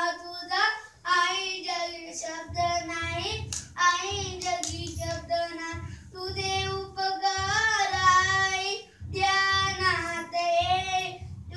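A young boy singing in a high voice, with long held notes in phrases. From about two and a half seconds in, a low, regular thumping runs beneath the singing.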